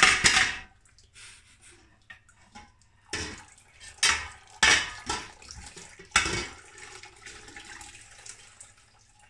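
Wort splashing and draining back into a stainless steel brew pot as a wet mash grain bag is lifted and set on metal rods across the pot. A loud splash at the start, then a few sharp knocks and splashes between about three and six and a half seconds, with faint dripping in between.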